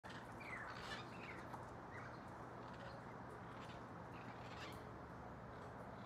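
Parrots calling faintly every second or so, short squawks over a steady outdoor background hum.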